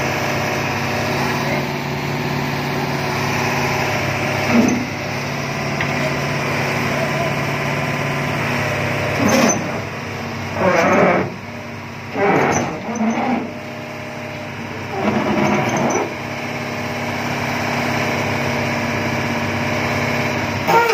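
Hitachi 200 excavator's diesel engine running steadily under load as the machine crawls on its tracks up onto a truck trailer, with several brief louder sounds over it in the second half.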